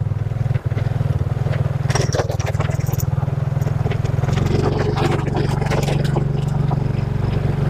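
Motorcycle engine running steadily, with scattered clicks and rattles over it, mostly about two to three seconds in.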